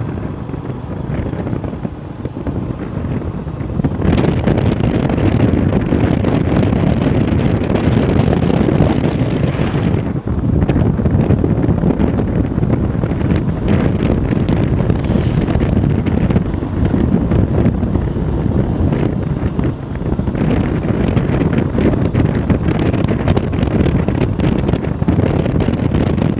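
Wind buffeting the microphone of a moving motorbike, mixed with the bike's running and road noise, stepping up louder about four seconds in as it picks up speed.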